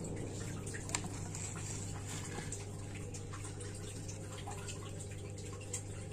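Water dripping from freshly boiled chilies and tomato in a wire strainer onto a wet stone mortar, with a few light clicks, over a steady low hum.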